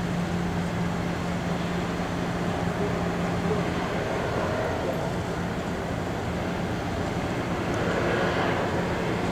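Steady low hum of a large naval oiler's machinery as the ship passes close by, over a constant rushing noise of wind and water. The hum is strongest for the first few seconds, then fades somewhat.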